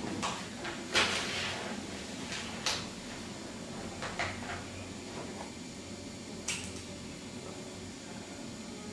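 A few sharp knocks and clicks of things being handled on a desk, about five in all. The loudest comes about a second in, followed by a brief rustle, over a steady room hum.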